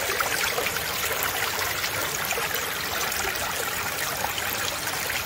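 Shallow creek water running steadily through a folding backpack sluice box and over the surrounding rocks.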